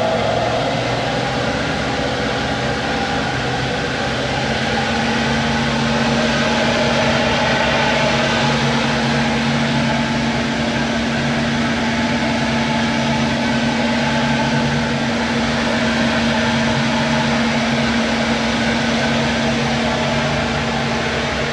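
A GM LS-family V8 boat engine running at a steady speed while the boat is under way, a constant drone over water and wind noise. The pitch settles and holds steady from about four seconds in.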